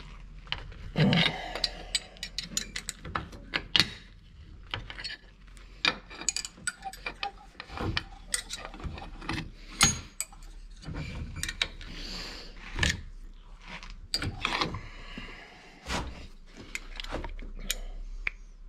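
Irregular clicks, knocks and light clatter of small metal engine parts, a Lombardini engine's throttle-control housing and its lever, being handled, turned and fitted by hand.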